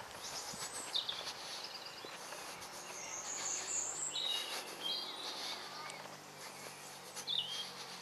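Woodland songbirds singing and calling: scattered high chirps, with a bright high trill about three seconds in and a few more notes near the end. Faint footsteps on a dirt path and a faint low hum lie underneath.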